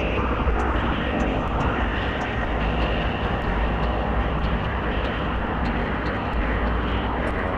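Harsh noise music from a Eurorack modular synthesizer: a dense, steady wall of noise over a heavy low rumble, with faint scattered clicks on top.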